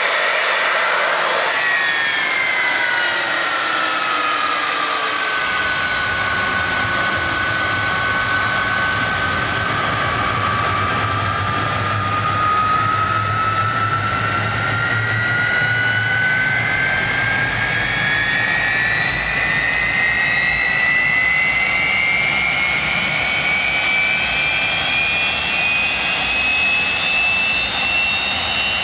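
Rolls-Royce Avon Mk 1 turbojet starting on its cartridge starter. The cartridge fires with a sudden rush and spins the engine up with a rising whine, which then sags back over the next several seconds. A low rumble comes in about five seconds in, and from about ten seconds the whine climbs steadily as the engine accelerates.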